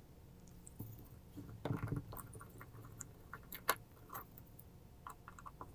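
Faint, scattered small metal clicks and scrapes as a small flat-blade screwdriver turns the cover-plate screws out of a chrome ratchet head, played back sped up.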